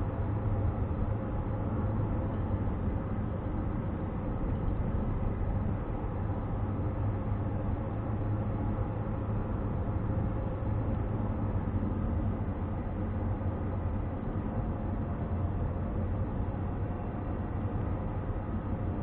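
Steady low drone of a car's engine and tyres on asphalt, heard from inside the cabin while driving at an even pace.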